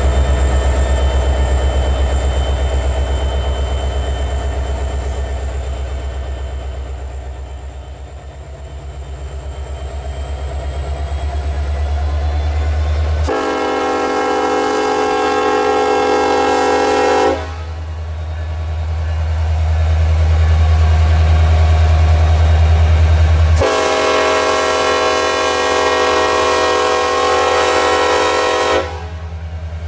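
Diesel freight locomotive sounding its air horn in two long blasts, the first about four seconds and the second about five, roughly six seconds apart. The locomotives' engines rumble underneath throughout.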